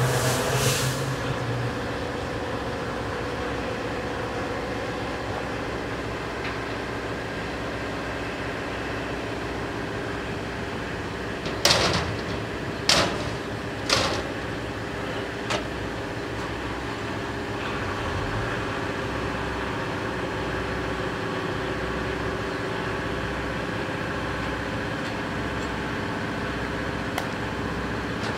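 EMD GP38-2 diesel locomotives, 16-cylinder 645 engines, idling steadily. A little under halfway through, four sharp metal bangs come from the crewman working the cab door.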